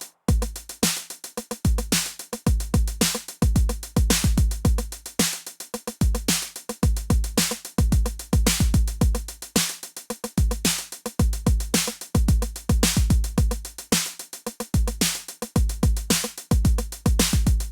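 Roland TR-8 drum machine's 909 kit playing a factory pattern unprocessed: a steady electronic groove of deep kick drums with sharp percussion and cymbal hits between them.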